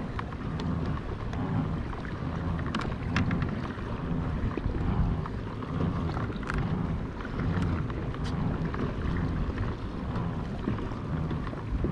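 Wind rumbling on an action camera's microphone over water sloshing against a kayak's hull, with a few short splashes.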